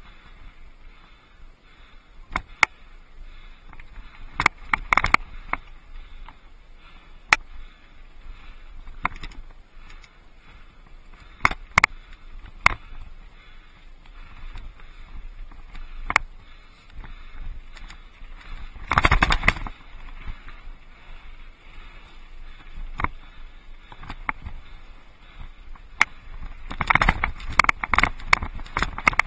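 Mountain bike rolling over rocky desert singletrack: tyres crunching on gravel under sharp clicks and knocks from the bike jolting over rocks. Heavier bursts of rattling come about five seconds in, around nineteen seconds, and again near the end.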